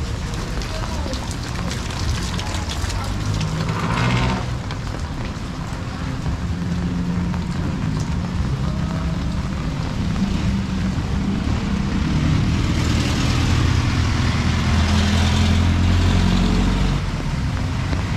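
A motor vehicle engine running close by, growing louder about two-thirds through and dropping away near the end, over a steady hiss of street noise and rain.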